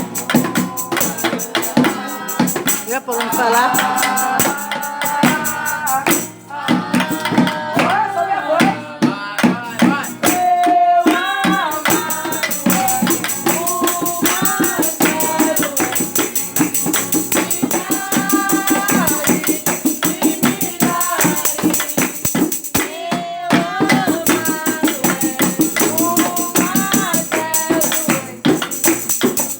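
A gospel praise song sung by voices over a steady tambourine rhythm.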